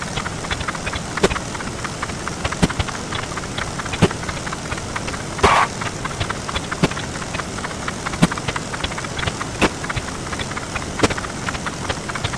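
A dense, rapid crackle of counting sound effects sped up 64 times, with a sharper click about every second and a half and a brief louder burst about five and a half seconds in.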